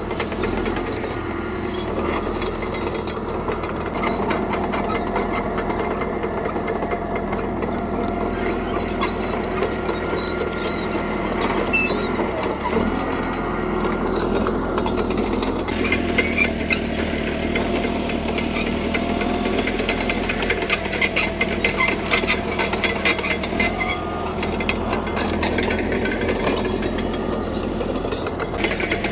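CAT D3K crawler bulldozer working: its diesel engine runs steadily under load while the steel tracks clatter with fast, dense clicking. The engine note shifts about halfway through, and the track clatter grows stronger from then on.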